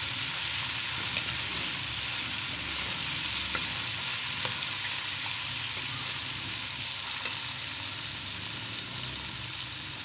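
Chopped capsicum and green chillies sizzling in hot oil in a metal wok, a steady frying hiss, while a steel spoon stirs them with a few light taps and scrapes against the pan.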